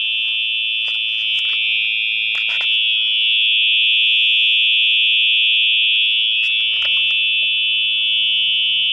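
Function generator sounding an imitation of a Simplex 4903-9236 fire alarm horn: one steady, continuous high-pitched electronic tone with no pulsing.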